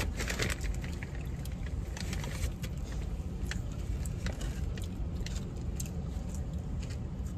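Paper fast-food wrapper and bag crinkling and rustling in short scattered crackles as food is handled and eaten, over a steady low hum inside the car.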